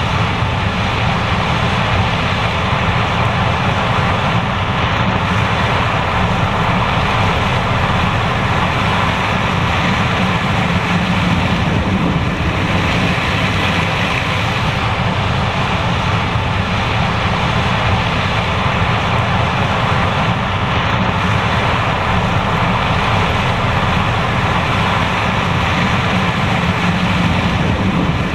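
John Deere S780 combine harvester running steadily while harvesting corn, a constant, unchanging machine noise.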